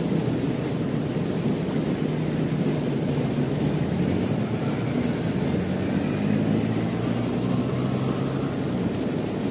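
Steady, low rushing of a fast-flowing river current, with a faint low hum underneath from about four to eight seconds in.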